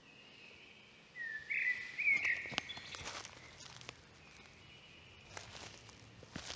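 Forest ambience: a bird gives a loud chirping call with quick pitch glides about a second in, followed by a few short, scattered crackles and snaps from the forest floor.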